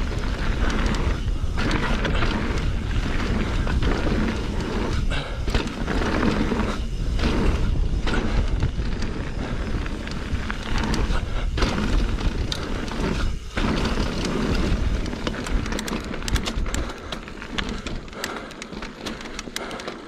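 Mountain bike riding fast down a dirt jump line: wind rushing over the microphone along with the tyres rolling on packed dirt, broken by a few brief dips, and quieter over the last few seconds as the bike slows.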